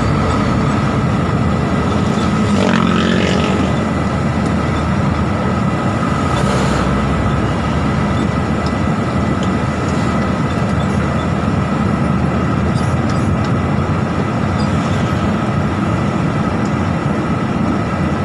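Articulated trailer truck on the move: a steady, loud rumble of engine and road noise.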